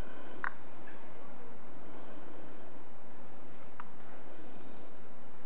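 A few small clicks and taps of parts and tools on a Daiwa Steez SV TW baitcasting reel being taken apart, the sharpest click about half a second in, over a steady hiss.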